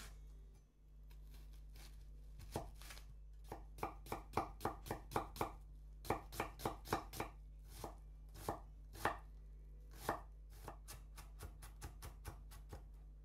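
Chef's knife chopping an onion on a bamboo cutting board: a few single cuts, then a run of quick strokes about three a second, some slower heavier chops, and lighter, quicker taps near the end as the onion is minced fine.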